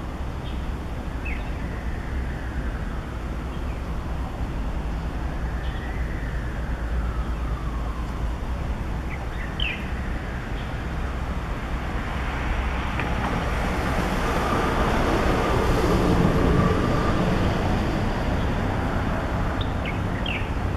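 Steady road-traffic rumble that swells as a vehicle passes, loudest about two-thirds of the way through. A small bird gives a few short, high chirps: once near the start, twice about halfway, and twice near the end.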